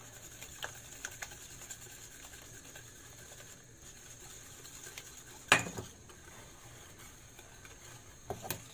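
Wire whisk stirring beaten eggs and sugar in a glass bowl, faint scraping with a few light ticks, while hot lemon juice is poured in so the eggs don't cook. One sharp knock about five and a half seconds in.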